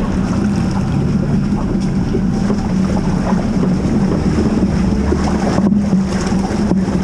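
Jeep Trailhawk's engine running with a steady hum while driving the trail, under wind noise on the microphone and scattered small clicks and knocks.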